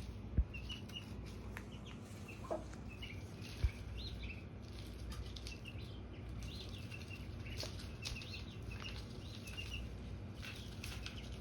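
Young poultry peeping: many short, high chirps repeated throughout, with two sharp knocks, one about half a second in and one about three and a half seconds in.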